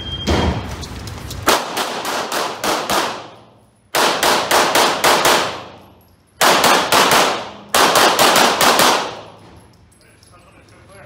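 Shot timer start beep, then a semi-automatic pistol fired in four fast strings of about half a dozen shots each, with short pauses between them. The shots echo off the walls of an indoor range, and the last one comes about nine seconds after the beep.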